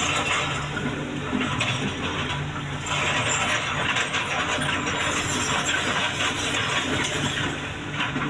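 Excavator engine running steadily under continuous metallic rattling and clanking from the working machine.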